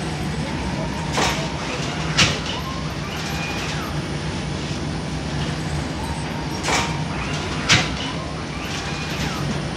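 Bakery flatbread oven machinery humming steadily, with two pairs of sharp knocks, each pair about a second apart.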